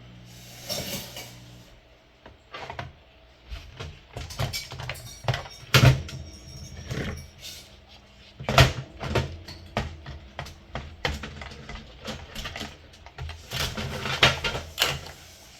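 Irregular plastic clicks, knocks and rattles of a Timex alarm clock's casing and battery compartment being handled and pulled at during disassembly, with the sharpest knocks about six and eight and a half seconds in.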